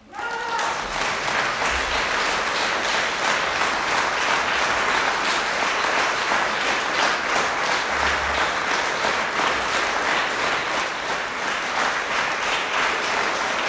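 Audience applauding: the clapping breaks out suddenly and keeps going at a steady level.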